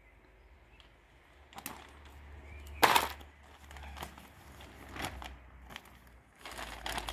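Plastic flower bag rustling in a few short bursts as it is fitted over a walnut graft, loudest about three seconds in.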